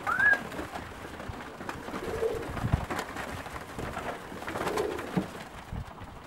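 English tippler pigeons cooing, low calls about two seconds in and again near five seconds, with wings flapping as the birds flutter about the loft.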